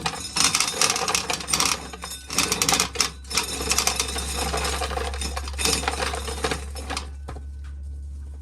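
Corn being shelled: a rapid, dense clatter of kernels and cobs, over a steady low hum. The clatter eases off about seven seconds in.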